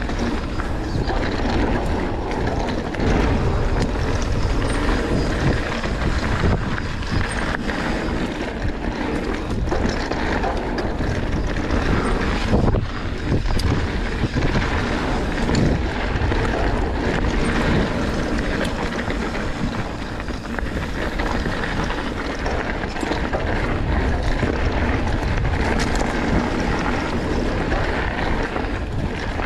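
Enduro mountain bike ridden down a dirt trail: heavy wind buffeting the camera microphone over steady tyre rumble, with scattered sharp clicks and knocks as the bike runs over rough ground.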